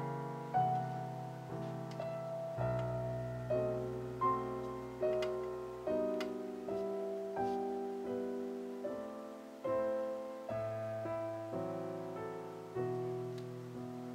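Background piano music: a slow, evenly paced piece with a new note or chord struck about every three-quarters of a second, each fading before the next.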